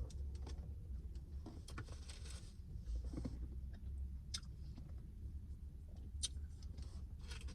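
Close-up chewing of food, with scattered small mouth clicks and smacks over a low steady rumble.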